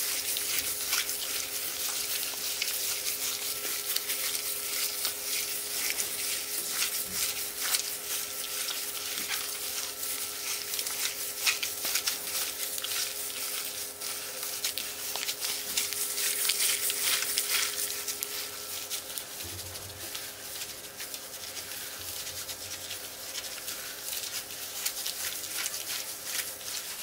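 A plastic-gloved hand kneading and squeezing raw minced-beef, rice and herb filling in a plastic bowl, just wetted with a cup of water: a steady wet squelching and crackling as the mixture is worked.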